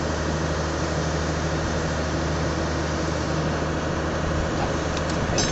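Rebar bending machine's electric motor and gearbox running with a steady hum. A short sharp click near the end.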